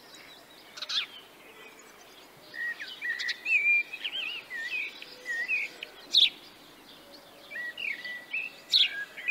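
Songbirds singing in the trees: two runs of quick whistled warbling notes, with a few sharp chirps between them.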